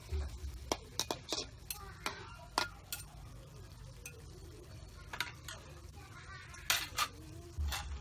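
Metal ladle clinking and scraping against a steel wok while stirring frying food, in scattered sharp knocks, the loudest a few near the end.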